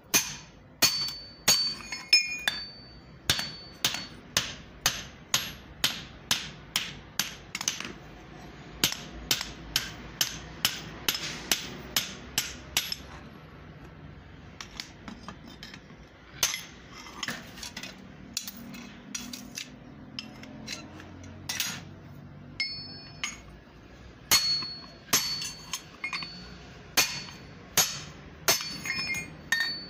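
Hammer blows on a steel drift pin driven through the eye of a forged double axe head sitting on a bolster, about two ringing metallic strikes a second. The hammering stops for a few seconds just before halfway, comes back in scattered blows, and picks up a steady rhythm again near the end.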